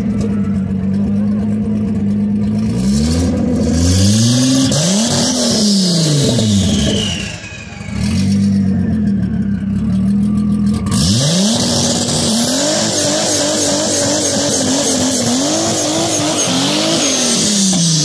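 Turbocharged VR6 engine of a Mk3 VW Golf drag car, held at a steady raised idle, then revved up and down in several sharp blips. From about halfway it is brought up and held at high rpm with a wavering pitch as it is staged for launch. Near the end the car pulls away and the sound falls off.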